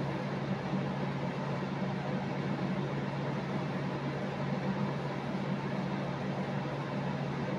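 Steady machine hum: a constant low drone over an even hiss, with no change through the stretch.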